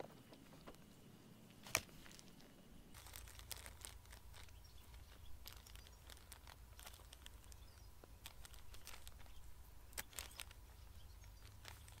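Faint crinkling of a plastic bag and crumbling soil as hands firm a lettuce seedling into the bag, heard as scattered small clicks and rustles. A low steady rumble sets in about three seconds in, and two sharper clicks stand out near the start.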